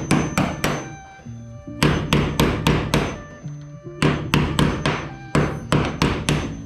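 Hammer blows on aluminium aircraft parts, in quick runs of about four to six strikes, four runs in all. Background music with held notes plays underneath.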